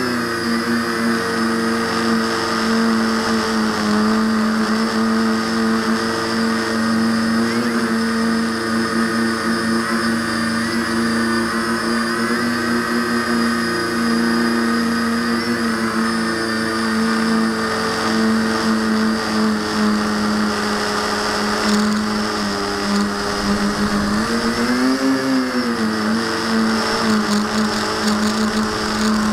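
Electric motors and propellers of a V-tail quadcopter in flight, heard from the camera mounted on the airframe: a loud, steady humming whine. About 25 seconds in its pitch swells up and drops back.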